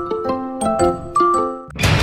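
Intro jingle music of short, ringing, bell-like keyboard notes; about 1.7 s in it gives way to loud, dense background music.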